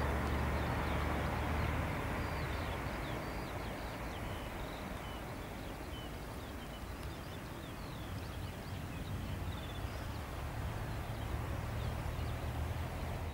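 Airbus A330-300 jet engines running as the airliner rolls out after touchdown, a steady rumble and hum that fades and then swells again in the last few seconds. Birds chirp briefly and often through the middle.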